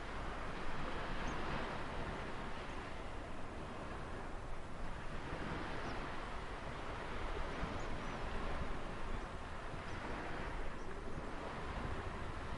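Ocean surf washing on the shore: a continuous hiss that slowly swells and eases as the waves come in.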